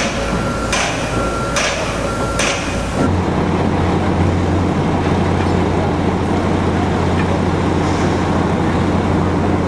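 Construction-site clatter of sharp metal knocks about once a second, with a high steady tone sounding on and off. About three seconds in it changes to the steady low drone of an idling engine.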